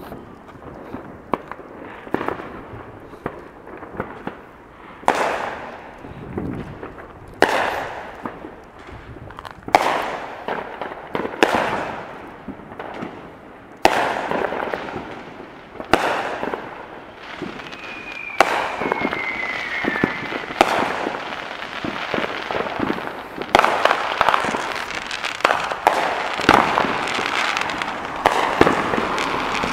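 Aerial fireworks going off: sharp bangs every two seconds or so, each trailing off, growing into near-continuous bangs and crackling over the last third. A short falling whistle sounds a little past the middle.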